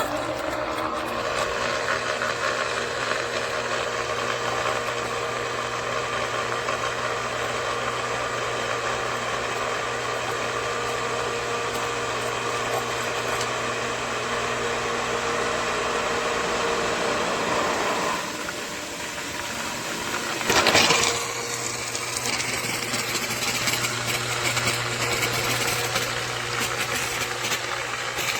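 A 1/3 HP submersible sump pump's electric motor running with a steady hum. About 18 seconds in the sound changes, and a brief louder rush follows a couple of seconds later.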